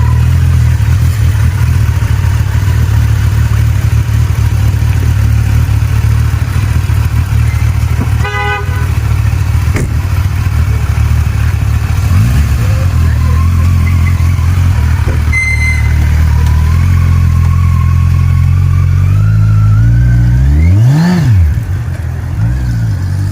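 Kawasaki Ninja 1000SX inline-four engine idling steadily, with one quick blip of the throttle that rises and falls about three seconds before the end. A short horn toot sounds about eight seconds in.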